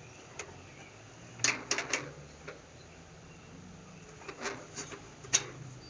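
Clicks and knocks from working the retaining peg of a front-loading washing machine's shock absorber loose with long-nose pliers: a quick run of three or four clicks about a second and a half in, a softer cluster past the middle, and one sharp click near the end.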